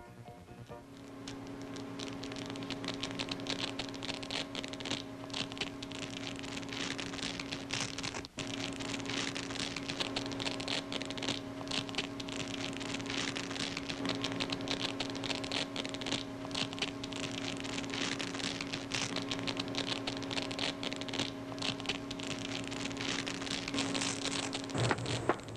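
Dense, irregular crackling and fizzing over a steady low electronic hum, a sound effect laid under footage of corroding metal. It starts about a second in, cuts out for an instant about eight seconds in, and fades just before the end.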